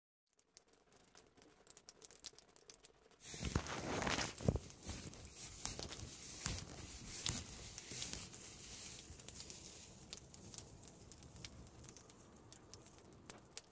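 Rain pattering on a microvan's roof and windows, heard from inside the van. It starts as sparse drops, becomes a dense, steady patter about three seconds in, then eases slightly.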